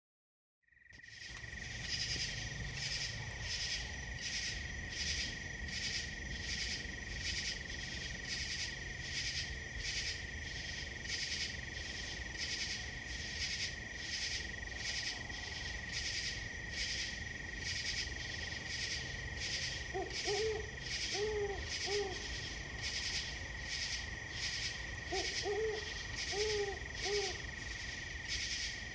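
Night chorus of insects: a steady high cricket trill under a louder chirping that pulses about twice a second. Twice, in the second half, a low-pitched series of short hoots joins in, an owl calling.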